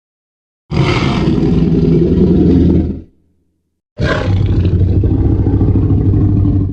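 Tyrannosaurus rex roar sound effect from the Jurassic Park films, heard twice: two long, deep roars about a second apart, each starting and stopping abruptly.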